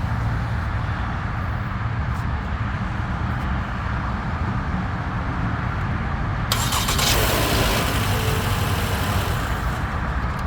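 A car engine running with a steady low rumble. About six and a half seconds in, a loud hiss joins it for roughly three seconds, then stops.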